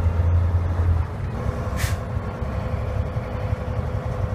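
Truck diesel engine heard from inside the cab of a 2010 Volvo VNL 780 as its I-shift automated manual transmission upshifts: the low engine drone drops away about a second in, and a short hiss of air follows a moment later before the engine pulls on steadily in the higher gear.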